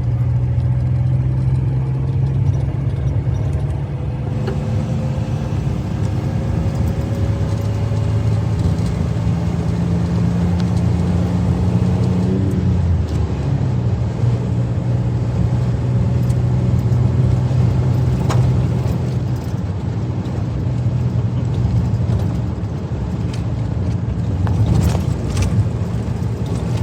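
Car driving along a road, engine hum and road noise running steadily. The engine note shifts down about halfway through, then settles again.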